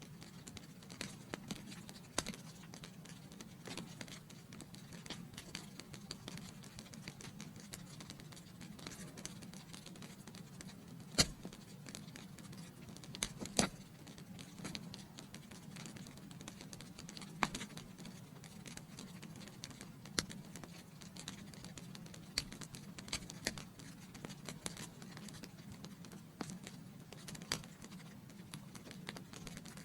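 Wood fire burning in a fireplace: a steady low rush of flames with irregular crackles and pops, two louder pops about eleven and thirteen and a half seconds in.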